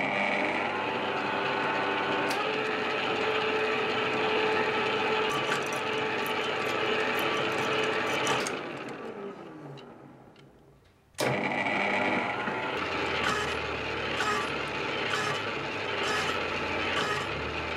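Metal lathe running with a large rusty flange spinning in its chuck, the gearhead whirring steadily. About eight seconds in the lathe is switched off and winds down to a stop. About eleven seconds in it starts again suddenly and runs on, now with a regular light ticking.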